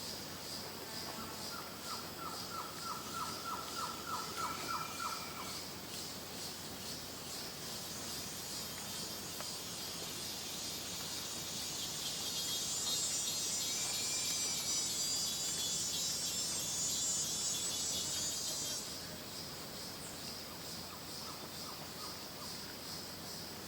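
Rainforest ambience of steady high insect chirring. Near the start comes a rapid series of pulsed animal calls, about three a second for a few seconds, and two short bird notes sound well apart. From about halfway a louder, higher insect buzz joins in, then cuts off suddenly.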